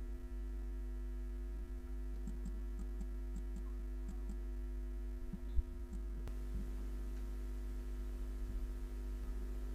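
Steady electrical mains hum on the recording, with a few faint mouse clicks and one short thump about five and a half seconds in.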